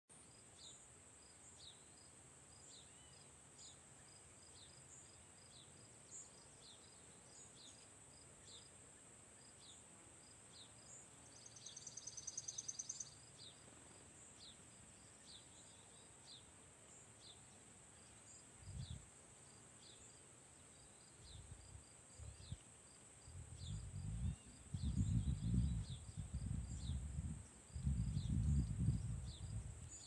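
A steady high drone of summer insects, with short bird chirps repeating about every half second and a brief rapid trill about twelve seconds in. In the last several seconds wind buffets the microphone in low gusty rumbles, the loudest sound here.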